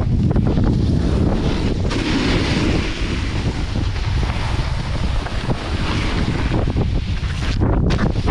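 Wind buffeting the microphone of a pole-mounted action camera as a snowboard runs down groomed snow, the board's edge hissing and scraping over the snow. The hiss grows in the middle and briefly drops out near the end.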